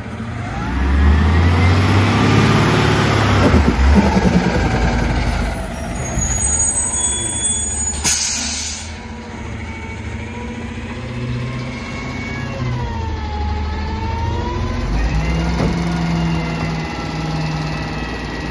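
Garbage truck running on compressed natural gas pulls up and stops. The engine runs with shifting pitch, the brakes squeal briefly about six seconds in, and the air brakes give a short hiss about eight seconds in. The truck then idles with a steady hum and a wavering whine.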